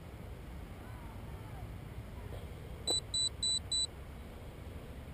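A sharp click as a battery connector is plugged into a Gaui X5 electric RC helicopter, followed at once by four short, evenly spaced high beeps from its electronic speed controller powering up.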